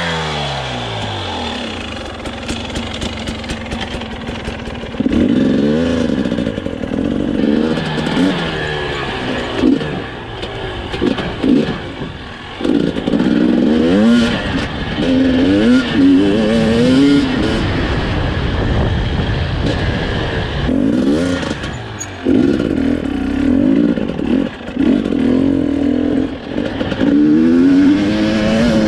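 Husqvarna TE250 enduro motorcycle engine being ridden off-road. The revs die away at first, then rise and fall again and again in short bursts, with several brief drops as the throttle closes.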